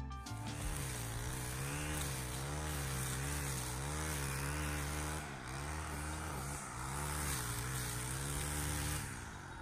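Stihl gas string trimmer running as it cuts tall grass, heard from a distance. Its engine pitch rises and falls in a steady rhythm as the throttle is worked, and it cuts off abruptly near the end.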